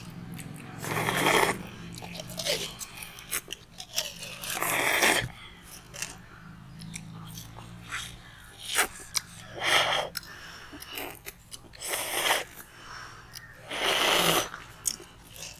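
People slurping and biting on frozen fruit-juice ice lollies, in irregular bursts of a second or less.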